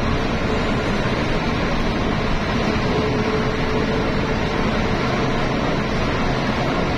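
Steady road noise of a vehicle driving at speed, tyres and engine heard from inside the vehicle, with a faint steady hum that comes and goes.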